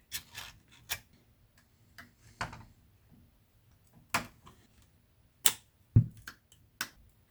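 Small, sharp clicks and taps, about eight at irregular intervals, as brackets are fitted over the LCD screens of a VW Polo 9N instrument cluster by hand.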